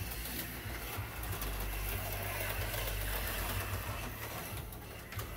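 HO-scale slot cars running on the track, a steady whir of their small electric motors.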